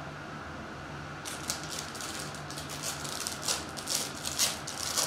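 Foil trading-card wrapper crinkling and tearing as it is peeled open by hand, a run of irregular crackles starting about a second in.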